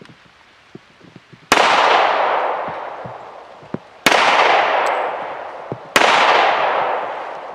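Three pistol shots fired at a slow, deliberate pace, the first about a second and a half in and the others roughly two seconds apart, each ringing out in a long echo that fades over about two seconds.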